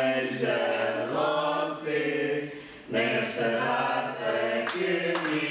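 A group of people singing together in unison, with hand claps coming in near the end.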